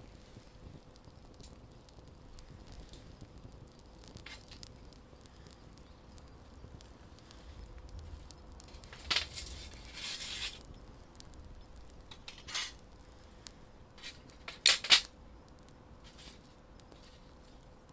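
Wood campfire burning with sparse crackles and sharp pops, the loudest a quick double pop near the end.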